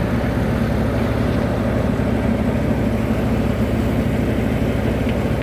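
Three-cylinder 50 hp John Deere diesel tractor engine running steadily at about 1500 rpm, driving a wheat thresher through its PTO, with the thresher's machinery running along with it. The engine speed hardly wavers: the engine is not straining under the threshing load.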